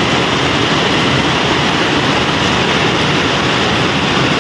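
Heavy rain falling steadily and splashing on a wet concrete floor.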